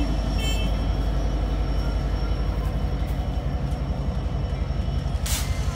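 Amtrak California F59PHI diesel locomotive pulling away at close range, its 12-cylinder EMD 710 two-stroke engine making a steady low rumble with a regular pulse. A brief hiss comes near the end.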